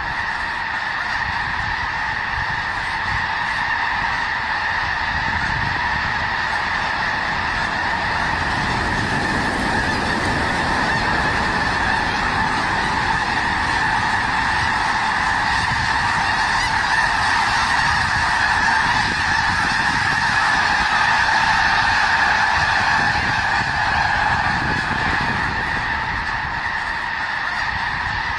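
A large flock of snow geese honking all at once, a dense unbroken din of overlapping calls. It swells slightly past the middle and eases a little near the end.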